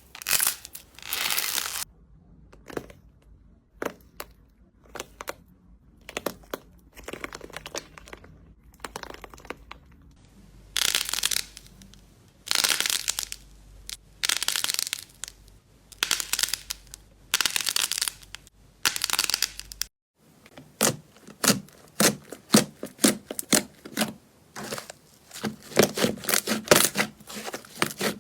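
Slime being pressed and worked by hands, heard as a series of separate noisy bursts. About twenty seconds in the sound changes to a fast run of small clicks and pops.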